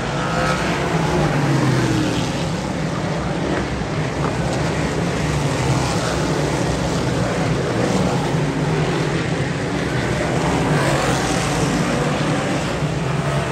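Dirt modified race cars running at racing speed, a dense, continuous engine sound with pitch rising and falling as cars pass.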